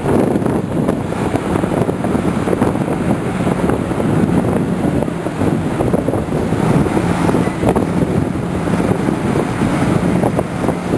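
Army 6x6 truck's diesel engine running as it drives up the ramp onto a beached landing catamaran, with heavy wind on the microphone.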